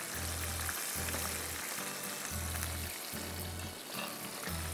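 Background music with a repeating bass line, over a steady hiss and crackle of food frying in oil.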